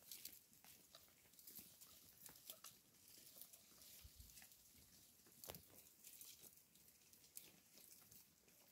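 Faint, irregular tearing and crunching of a goat cropping and chewing fresh grass close by.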